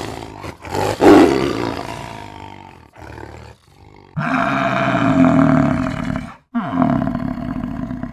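A large animal roaring, in several separate calls with abrupt breaks between them. One call comes about a second in and fades, a longer call is held for about two seconds midway, and another falls in pitch near the end.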